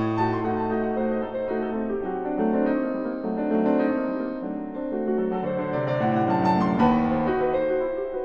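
Solo piano playing a brisk Romantic-era passage: quick running figures over repeated chords, opening on an accented chord with a held bass note and striking another accented chord about seven seconds in.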